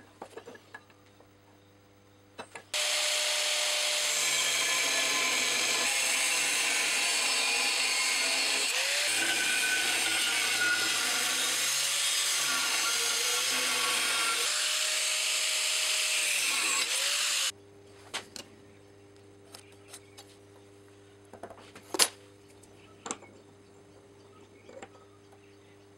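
Angle grinder with a thin cut-off disc cutting through steel plate: a loud, steady cutting screech that starts about 3 seconds in and stops abruptly about 15 seconds later, the motor's note sagging and recovering several times as the disc bites. Afterwards come a few sharp taps and small knocks.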